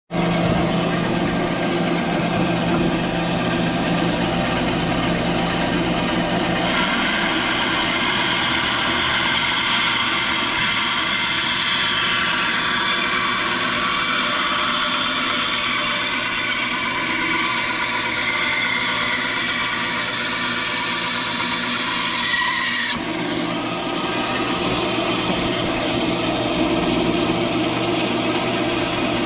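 Benchtop bandsaw running while its blade cuts a curved outline from a cedar board. The sound of the cut changes about a quarter of the way in and again near three quarters, with a faint high tone slowly falling in pitch in between.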